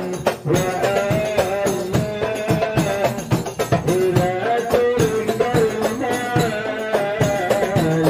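Hadrah ensemble: hand-struck rebana frame drums and a larger bass drum beating a dense, steady rhythm under a group singing a sholawat melody.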